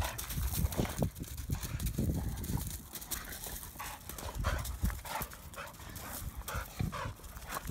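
Two young dogs play-fighting: short repeated play growls and snarls, coming thicker in the second half, with their paws scuffling on gravel.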